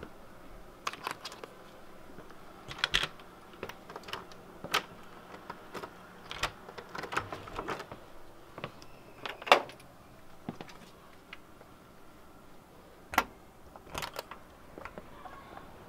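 A bunch of keys jingling and a door being handled: scattered clicks, knocks and rattles, with the loudest knock just past the middle and another sharp one a few seconds later.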